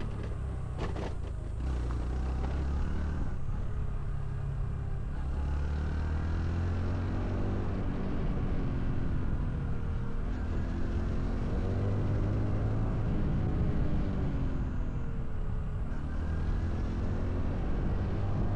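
Honda CT125 Hunter Cub's 125 cc single-cylinder four-stroke engine and exhaust while riding. The engine pitch falls and rises again several times as the bike slows and picks up speed or changes gear. A few sharp clicks come about a second in.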